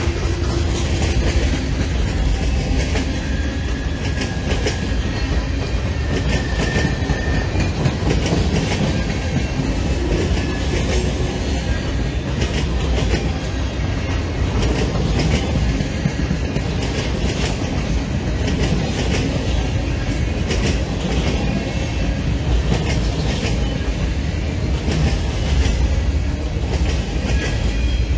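Freight train's cars rolling past: a steady low rumble with the clickety-clack of steel wheels over rail joints, a string of tank cars, covered hoppers, centerbeam flatcars and boxcars.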